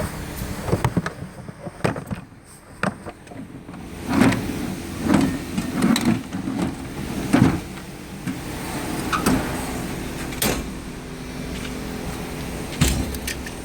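Drawers of a Snap-on KRL1163 roller toolbox sliding shut and open on their metal slides. Sharp clicks and knocks of tools and drawer parts come through it, with several louder rumbling slides around the middle.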